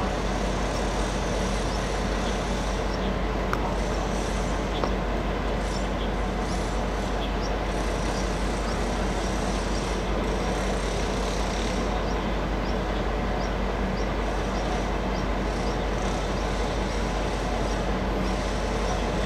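Steady hum and whir of a TEMU2000 Puyuma tilting electric multiple unit standing at a platform, its onboard equipment running while stationary, with faint short high chirps scattered over it.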